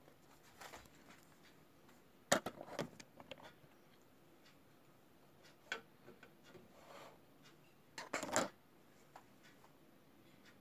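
Scattered plastic clicks and knocks as a 1:200 scale plastic model airliner is handled and fitted onto its display stand, loudest about two seconds in and again about eight seconds in.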